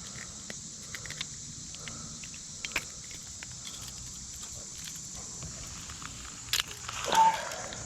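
Scattered small clicks and rattles of treble hooks and a lure while a small smallmouth bass is unhooked by hand, over a steady high insect drone. About six and a half seconds in there are louder knocks and a scrape with a brief squeak.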